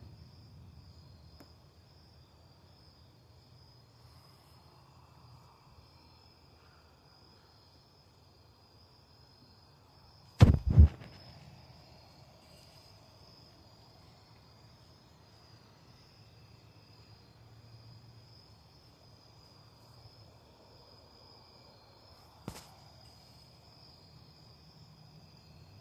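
Steady high-pitched insect chirring outdoors. Two sharp, loud knocks come close together about ten seconds in, and a single lighter knock near the end.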